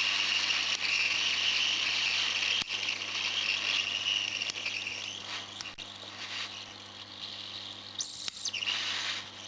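Hot air rework station blowing hot air onto a phone circuit board to melt the solder on a SIM card reader's pins: a steady high-pitched hiss that weakens after about four and a half seconds, with a few light clicks and a brief louder burst of hiss about eight seconds in.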